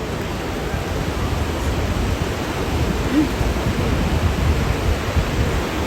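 Sea surf washing steadily onto a beach, an even rushing noise.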